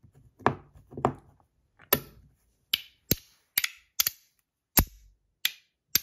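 Metal pieces of a Clown Orange Biscuit magnetic slider fidget snapping together as it is put back together. A dozen or so sharp clicks come at uneven spacing, some with a brief ring.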